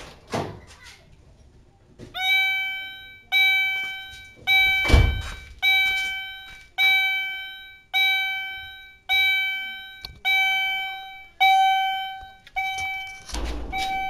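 Car reversing alarm sounding a repeated chime-like beep about once every 1.1 seconds, each tone fading away, starting about two seconds in; it signals that reverse gear is engaged and the newly fitted alarm works. A few knocks come before it, and a loud thump about halfway through.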